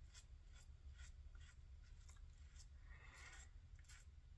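Faint, quick scraping strokes of a Merkur 34C safety razor with an Astra blade cutting stubble, about three strokes a second.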